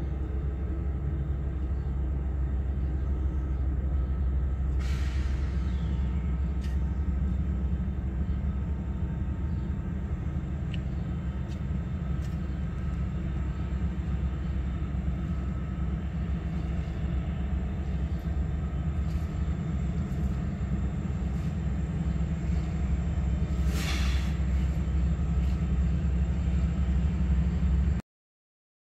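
Union Pacific freight train passing: its diesel locomotives' engines running with a steady low rumble, then the first covered hopper cars rolling by. The sound cuts off suddenly near the end.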